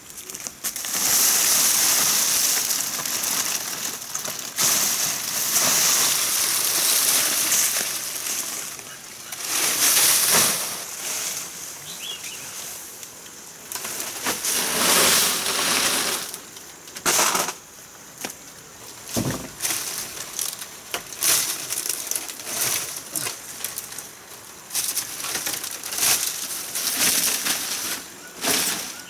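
Irregular bursts of rustling noise, some lasting a second or two and some brief, stopping and starting throughout.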